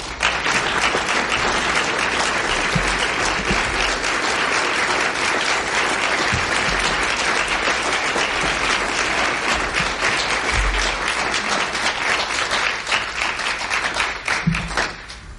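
Audience applauding with dense, steady clapping after a speech ends. The clapping stops suddenly near the end.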